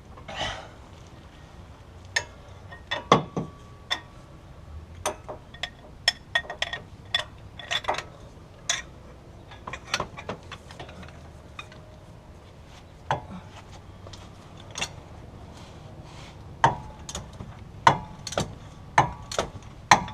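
Metal hand tools clicking and clinking against steel in irregular sharp knocks, some with a short metallic ring, as a hub assembly mounting bolt is worked loose with a socket and ratchet or breaker bar.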